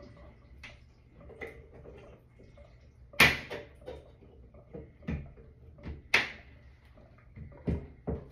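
Metal tool clicking and knocking against the old shower valve cartridge inside the wall opening as it is worked loose, with two sharp, loud clacks about three and six seconds in and a few smaller knocks toward the end.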